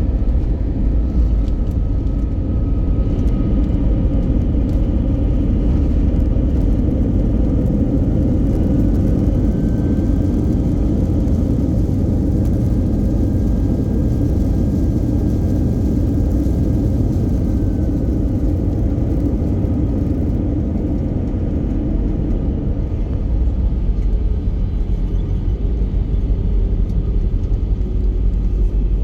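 Steady low rumble of an Airbus A320neo's engines and airflow, heard inside the passenger cabin, with a few faint whining tones above it.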